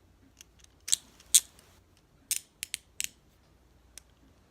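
Steel hinged handcuffs clicking as the cuff's ratchet arm is pushed shut: a run of sharp, irregular clicks, the loudest two about a second in, then a quick cluster of four and a last one near the end.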